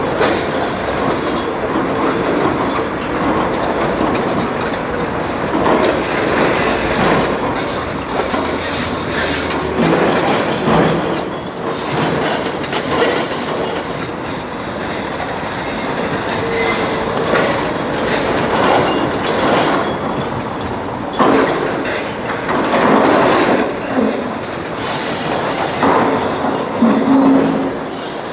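Hydraulic breaker hammers on large demolition excavators pounding concrete, a continuous clatter of impacts with diesel engines running underneath.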